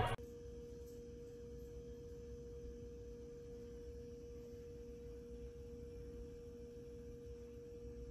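A faint, steady electronic tone held at one pitch throughout, over a low background rumble.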